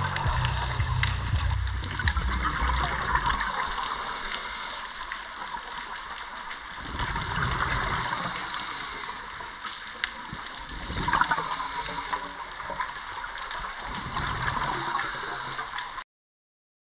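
Underwater ambience of scuba divers: exhaled bubbles rushing and gurgling in surges every few seconds, under the last of the background music, which fades out in the first few seconds. All sound cuts off abruptly near the end.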